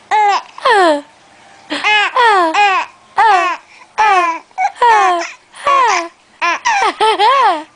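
A baby making a string of about a dozen short, high-pitched vocal sounds, each a brief falling or rising-then-falling wail: fussy babbling close to crying.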